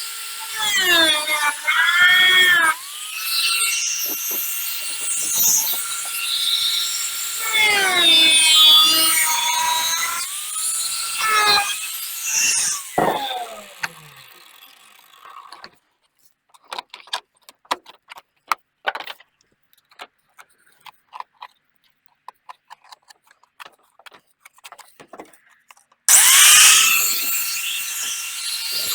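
A small high-speed electric power tool making rough cuts. Its whine sags in pitch as it bites in and climbs back as it is eased off, for about fourteen seconds. Then come scattered light clicks and scrapes, and near the end the tool spins up again.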